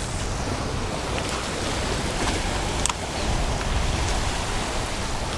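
Wind buffeting the microphone over small waves washing against a rocky shoreline, with a few faint clicks.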